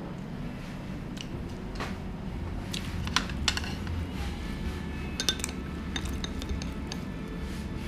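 Tableware clinking while eating: a ceramic soup spoon and metal chopsticks knocking against a stainless steel tray and ceramic bowls, in scattered sharp clinks, a few ringing briefly, over a steady low room hum.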